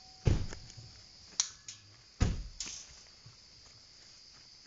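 Wire dog-crate trap being handled and taken apart: two heavy knocks about two seconds apart, each dying away briefly, with a sharp click between them. Night insects keep up a steady high-pitched chorus underneath.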